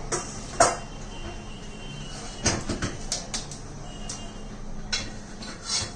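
Kitchenware being handled at a counter: a few scattered sharp knocks and clicks, the loudest about half a second in and a cluster a little before the middle.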